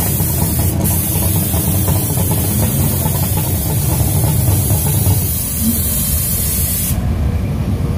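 Jet engine running at idle: a steady low rumble with a loud hiss on top. The hiss stops abruptly about seven seconds in while the rumble carries on.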